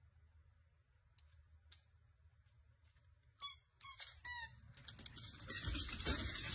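A husky-type dog gives three short, high squeaky yips a little over three seconds in, after a few faint ticks. A louder, noisy rustle then builds toward the end.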